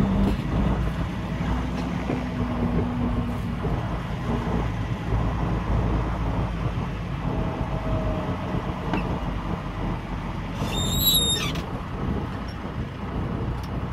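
A semi tractor's diesel engine heard from inside the cab, running with a steady low rumble as the truck rolls slowly. About eleven seconds in there is a brief high-pitched squeal.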